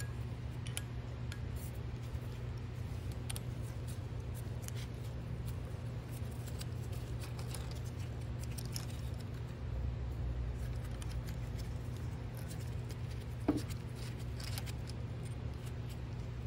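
Faint scrapes and ticks of a small hand tool working the freshly cut threads of a metal quill nut, over a steady low hum. A single sharper tap comes a little before the end.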